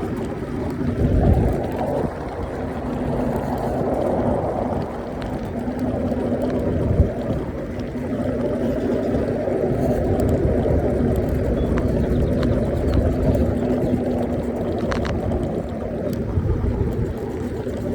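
Riding an electric scooter: wind buffets the microphone, with a steady hum underneath, and a single knock about seven seconds in.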